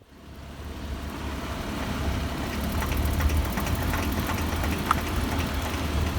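Daihatsu Tanto L375S kei car running, a steady low rumble, with irregular light clicking and rattling and one sharper click about five seconds in: the knocking the owner traces to the outer constant-velocity joint of the front drive shaft.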